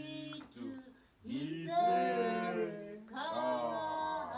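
A small group of men and women singing unaccompanied, in long held phrases with a short break about a second in.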